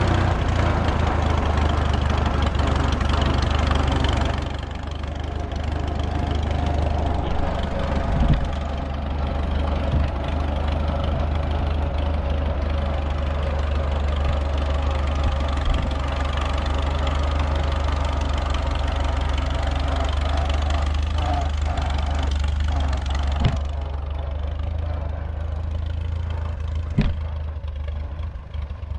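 1937 Farmall F20's four-cylinder engine running unmuffled as the tractor is driven, loud up close, then a step quieter and farther off after about four seconds, with a few sharp knocks. The owner says it runs rich from a flooding carburetor.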